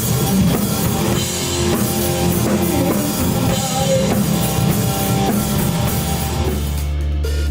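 Rock band playing an instrumental passage between sung lines: a drum kit beating steadily under electric guitars and bass. Near the end the drumming drops away, leaving a low held note ringing.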